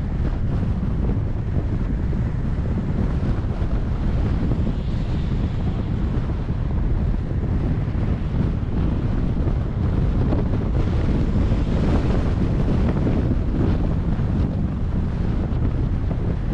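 Steady wind rumble buffeting the microphone of a camera on a moving car, mixed with the car's road noise.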